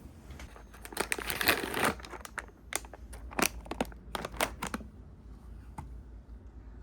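Plastic packaging crinkling and rustling as it is handled and opened, followed by a few sharp clicks.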